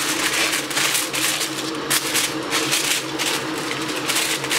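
Aluminium foil crinkling and crackling as it is folded and pressed around a pot lid by gloved hands, in a quick irregular run of crackles.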